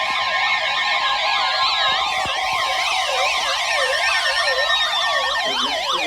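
Several electronic sirens sweeping rapidly up and down over one another, about three sweeps a second, with steady alarm tones held underneath for the first few seconds.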